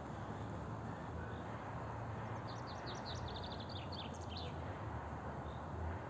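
A bird's rapid series of short, high chirps, about two seconds long, midway through, over a steady low background hum.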